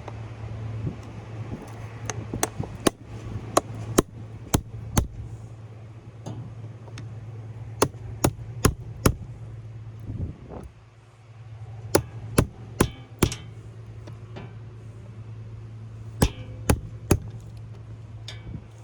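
Hammer driving a small sharp chisel into the soft lead connector straps between forklift battery cells: sharp metallic strikes in four quick bursts of three to seven blows, with pauses between. A steady low hum runs underneath.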